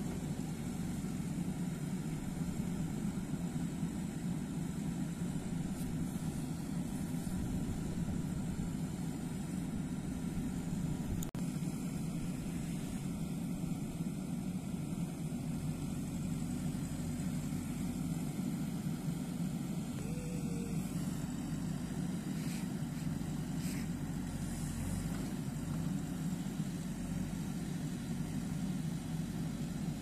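JCB 3DX backhoe loader's diesel engine running steadily under load while the backhoe arm digs and scoops soil.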